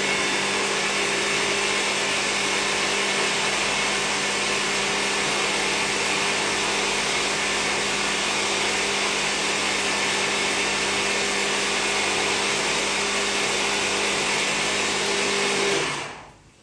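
Electric hand blender with its chopper bowl attachment running steadily at one speed, blending a thick plant-based cheese spread until creamy. The motor stops abruptly near the end.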